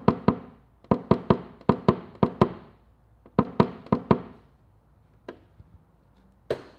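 Light, sharp taps on a sheet-metal dent panel in quick runs of two to five, each with a short ring, then two single taps near the end: tapping down high spots in paintless dent repair.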